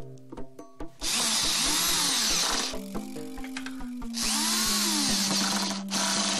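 Cordless drill-driver driving screws into a plywood box, in two runs of about two seconds each. The motor whine rises and falls as the trigger is squeezed and let go. Background music plays underneath.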